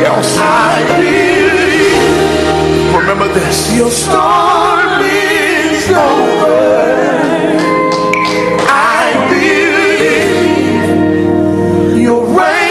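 Gospel song with wavering solo vocals over steady bass and backing singers, played loudly.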